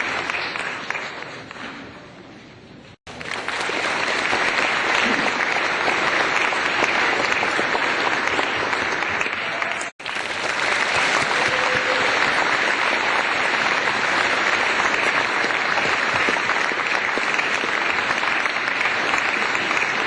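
Applause: many hands clapping at once in a dense, continuous patter. The first burst fades away about two seconds in, then fresh applause starts abruptly about three seconds in and again about ten seconds in.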